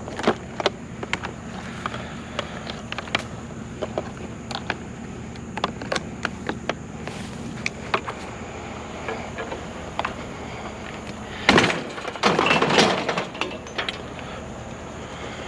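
Scrap items such as wire and an old vacuum being handled and loaded: scattered clanks and knocks, with a louder clattering crash about twelve seconds in.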